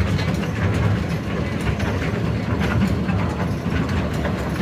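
Train running, heard from on board: a steady low rumble with irregular rattling clicks.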